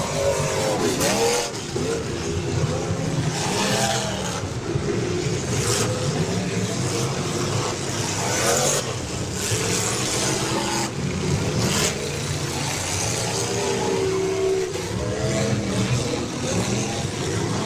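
Several demolition derby cars' engines revving hard at once, pitches rising and falling, with a few short louder bangs along the way.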